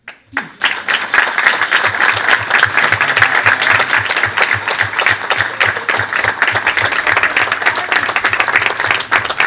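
Audience applauding: many people clapping at once, starting about half a second in and keeping up steadily, louder than the speech around it.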